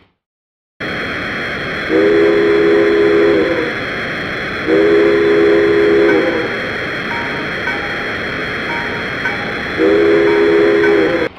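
Locomotive chime whistle, dubbed in as a sound clip, blown three long blasts over a steady hiss of running noise, starting after a moment of silence.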